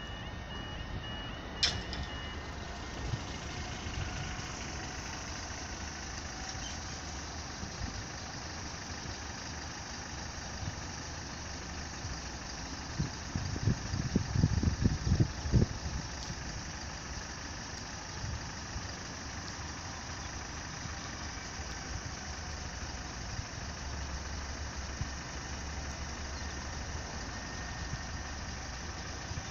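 Level crossing alarm tones sounding, then cutting out after a sharp knock about two seconds in as the barriers come down. After that a steady road-vehicle engine idles at the closed crossing, with a burst of louder low rumbling about halfway through as a pickup truck pulls up close.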